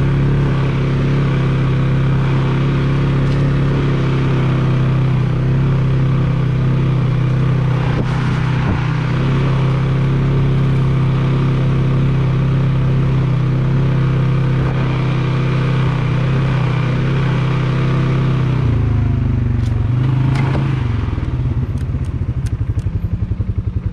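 Polaris Sportsman 570 ATV's single-cylinder engine running steadily at trail speed. About three quarters of the way through, the throttle comes off and the engine drops toward idle, its individual firing pulses audible near the end.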